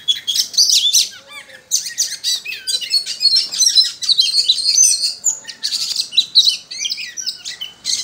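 Oriental magpie-robin (kacer) singing a rapid, varied run of chirps, trills and whistled glides with short breaks.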